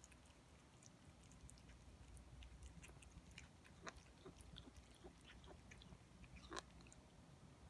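A cat eating, making faint, irregular crunching clicks with its mouth, two of them louder, about four and six and a half seconds in. The owner suspects the noise is a huffing, cough-like mouth noise rather than biting on food.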